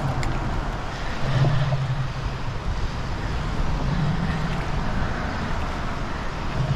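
Traffic on the road bridge overhead: a low hum that swells and fades about three times, over a steady rushing noise.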